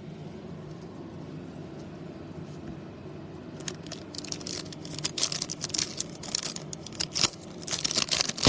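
A faint steady hum, then from about three and a half seconds in, crinkling and rustling of a foil trading-card pack wrapper being torn open and cards being handled, getting busier near the end.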